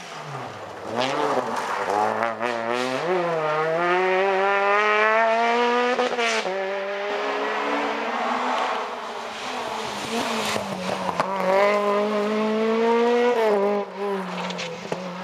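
Rally car engines at full throttle, the revs climbing and then dropping sharply at each gear change, several times over: cars accelerating hard along a closed stage road.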